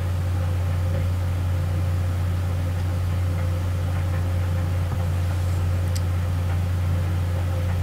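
A steady low hum with a faint even hiss over it, unchanging throughout.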